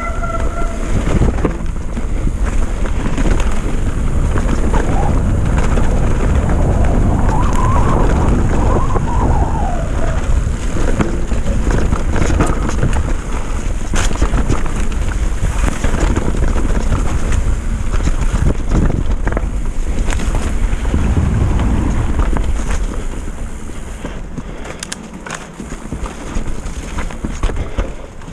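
Downhill mountain bike rolling fast over a dirt trail with roots and rocks: steady rush of wind on the microphone and tyre rumble, scattered knocks and rattles as the bike hits roots. It gets quieter over the last few seconds as the bike slows.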